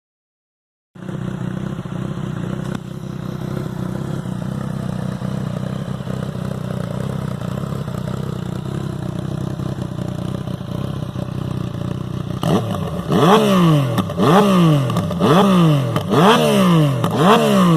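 Yamaha MT-09 Tracer's three-cylinder engine through a Hurricane Evolution aftermarket sport exhaust, idling steadily after about a second of silence. In the last five seconds it is blipped again and again, about once a second, each rev rising and falling quickly.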